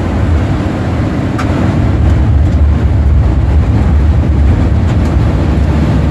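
Loud, steady low rumble of wind and road noise inside a campervan driving through a storm.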